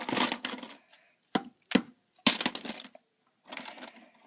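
Plastic Lego bricks clattering and clicking as pieces are handled and pressed together: short rattling bursts with a few sharp clicks in between.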